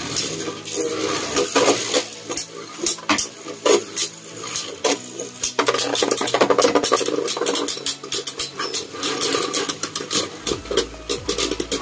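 Spinning Beyblade tops clashing and grinding in a plastic stadium bowl, with many quick rattling clicks as they strike each other and the walls over a steady spinning hum.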